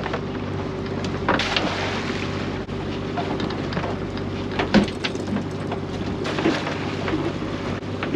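Small boat's outboard motor running steadily with the boat under way, a constant engine hum under the rush of water along the hull, with a few sharp slaps of the hull on the water.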